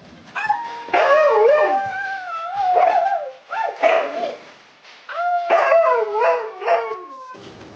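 A husky howling and yowling in long calls that waver up and down in pitch, in two bouts with a short break about halfway through.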